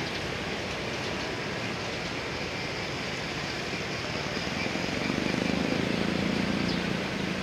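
Classic cars driving slowly past in a line, tyres and idling engines; a low engine hum swells about five seconds in as a black sedan passes close by, then eases off.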